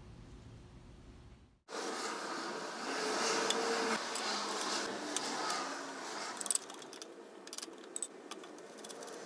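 Light metallic clinks and jingling over a steady hiss, with a few sharp clicks in the second half.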